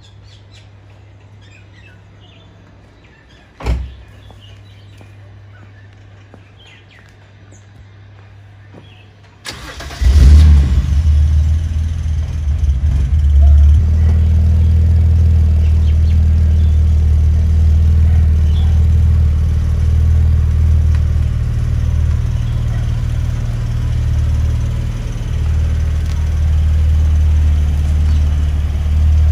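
A sharp click, then about nine and a half seconds in the 2006 BMW Z4 3.0si's inline-six engine starts with a loud flare and settles into a steady idle. Faint bird chirps before the start.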